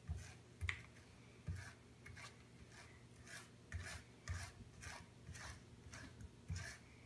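Table knife scraping across a crepe on a wooden cutting board, spreading mayonnaise in short repeated strokes, about two a second, some with a dull knock of the knife against the board.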